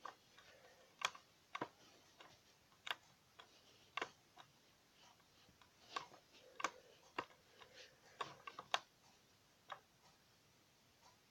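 Faint, irregular clicks and light taps, about a dozen scattered over several seconds, from handling a small plastic remote-control toy car and its controls. No motor is heard running.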